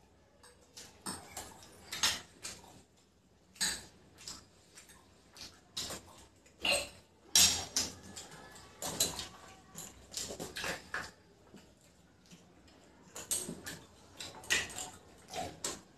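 Forks and spoons clinking and scraping against plates at an irregular pace as noodles are eaten, with a short lull about two-thirds of the way through.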